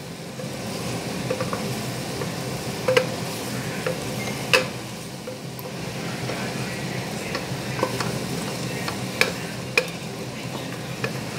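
Mutton and chilli masala sizzling in oil in a pressure-cooker pot, stirred with a spatula that scrapes and knocks against the pot a few times. The masala is being fried until the oil separates out.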